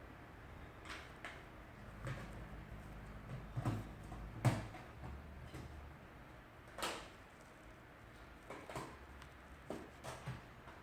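Scattered light knocks and clicks of hard objects being handled, about eight over the stretch, the sharpest about four and a half seconds in, over a faint low hum.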